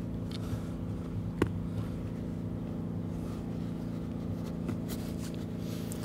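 A steady low machine hum runs throughout, with a single sharp click about a second and a half in.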